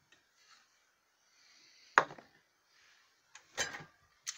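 Small hard-plastic toy pieces clicking and knocking as they are handled and set on a table: one sharp click about two seconds in, then a few lighter knocks near the end.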